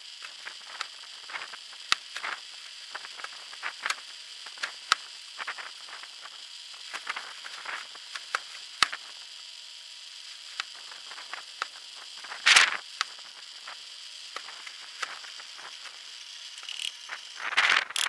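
An old belt-driven drill press drilling through a steel pin: a faint steady high whine under irregular clicking and crackling as the bit cuts, with a louder short rasp about twelve seconds in.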